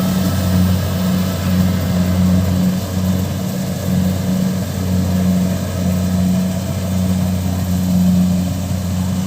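Combine harvester engine running steadily, a low, even drone with no change in speed.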